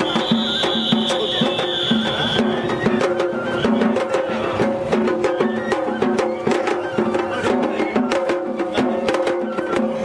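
Japanese festival hayashi music: a held, stepping melody line over many rapid, sharp drum and wood strikes.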